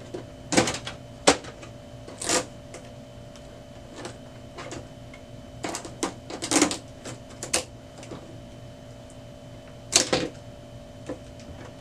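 Irregular clicks and knocks from a new HP Neverstop Laser MFP 1202w laser printer being handled, its scanner lifted and the inside checked for packing material. A faint steady hum runs underneath.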